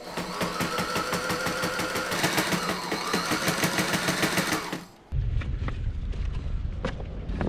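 Sailrite sewing machine stitching canvas at speed, a rapid, even clatter of the needle. It cuts off suddenly about five seconds in, and a low steady rumble with a few knocks follows.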